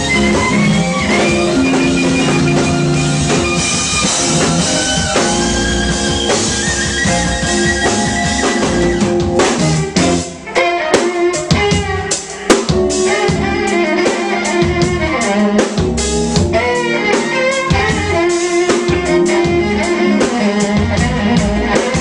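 Live band playing an R&B jam on electric guitar, electric bass, violin, keyboard and drum kit. About ten seconds in the music briefly thins, after which the drum hits stand out sharper and busier under the held notes.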